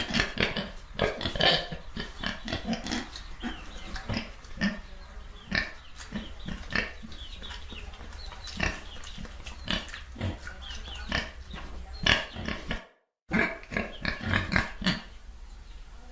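Pigs grunting and oinking over and over in short, irregular grunts. The sound cuts out completely for a moment about thirteen seconds in, then the grunting resumes.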